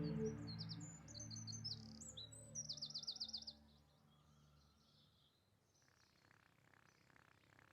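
Birds chirping, with a quick trill about three seconds in, over a held music chord that fades away. After about three and a half seconds only faint background sound is left.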